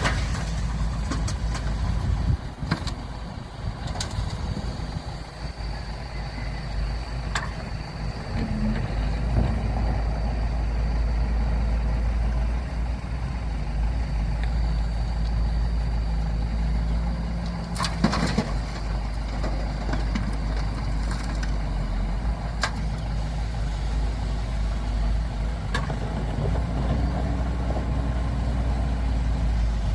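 Engines of excavators and dump trucks running steadily as a low rumble, with a few sharp knocks, the loudest about eighteen seconds in.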